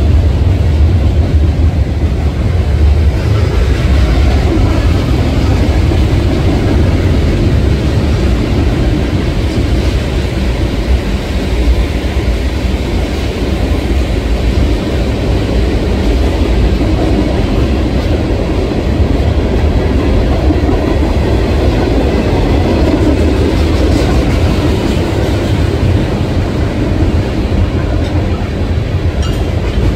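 Freight cars of a Canadian National manifest train, gondolas and tank cars, rolling past on a concrete overpass: a steady, loud rumble of steel wheels on rail.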